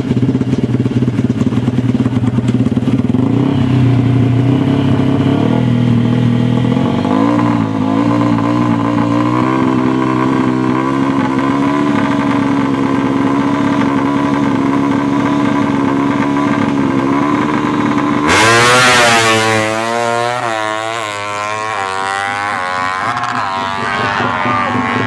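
Yamaha MX King single-cylinder motorcycle engine revving hard and holding a steady high pitch. Its pitch rises once about seven seconds in. Near eighteen seconds it suddenly turns louder and brighter, then its pitch sweeps down and wavers up and down.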